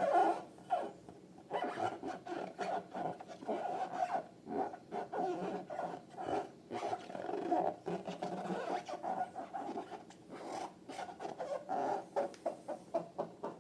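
Slime and balloons being worked by hand: an irregular run of short squishing and squeaking sounds with brief pauses.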